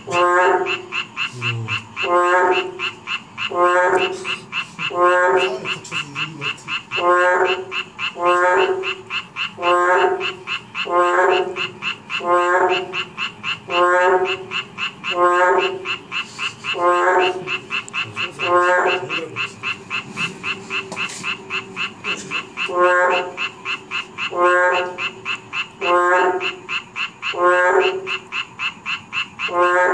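Boreal digging frog (maengkkong, Kaloula borealis) calling: a loud croak repeated about once a second, pausing for a few seconds after about 19 seconds. Underneath runs a steady, fast-pulsing chorus of other frogs.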